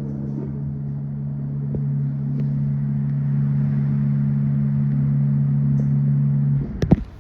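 Hydraulic elevator's pump motor humming steadily as the car rises. The hum cuts off near the end, followed by a couple of sharp clunks.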